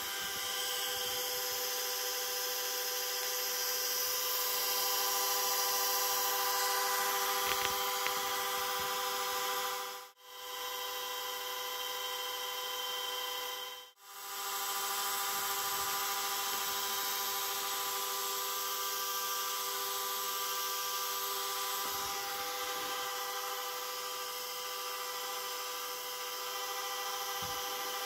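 Gyro motor of a Sfena aircraft artificial horizon running on 115 V 400 Hz power: a steady hum of several even tones over a hiss. The sound cuts out briefly twice.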